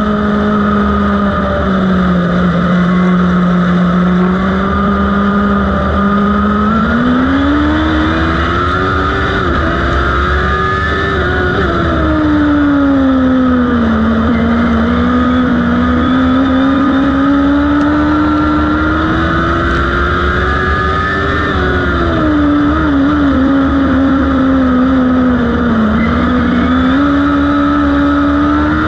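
Modlite dirt-track race car's engine heard from inside the cockpit, running at moderate revs, its pitch rising and falling gently several times over a low rumble.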